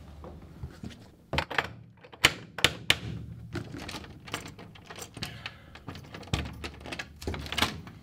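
Knocking on an apartment door, a few sharp knocks in two quick groups, then a run of small clicks and rattles as the door's lock and latch are worked and the door opens.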